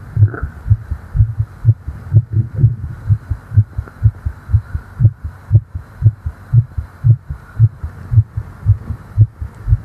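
Fast human heartbeat heard close up at the chest: a steady lub-dub double thump about twice a second.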